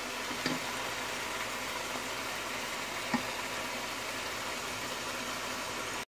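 Beef mince frying in oil in a hot pan, a steady sizzle, as yogurt is poured onto it. Two light knocks come about half a second and about three seconds in.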